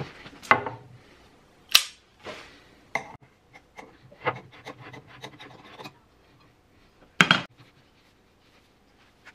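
A metal paint can being handled and pried open with a tool: a string of sharp clicks and metallic knocks with some scraping between them. The loudest knocks come near two seconds in and about seven seconds in, followed by quiet as brushing begins.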